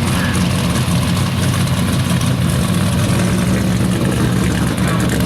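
Truck engine running steadily at a constant, even pitch.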